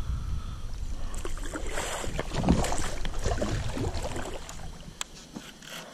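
Hooked bass thrashing and splashing at the surface of the water, a run of splashes loudest about two and a half seconds in, over a low rumble that drops away near the end.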